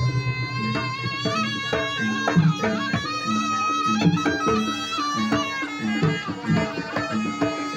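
Live jaranan music: a reedy wind melody wavering and held over a steady pattern of kendang drum strokes and gong-chime tones.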